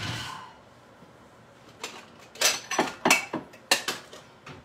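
Kitchen clatter of dishes being handled. A short rush of noise at the start, then a string of sharp clinks and knocks, loudest from about two to four seconds in.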